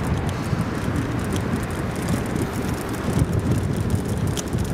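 Wind buffeting the microphone during a ride on an old Soviet bicycle: a steady low rumble with scattered light clicks and rattles.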